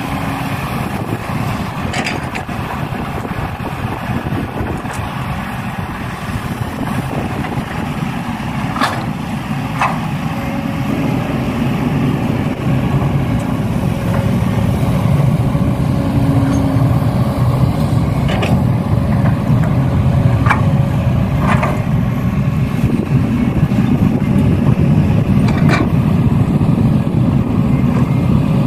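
A vehicle engine running steadily as a low rumble, growing slowly louder, with a few short clicks.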